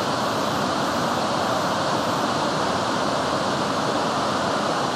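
Fukuroda Falls, a tall tiered waterfall, pouring: a steady, even rush of falling water.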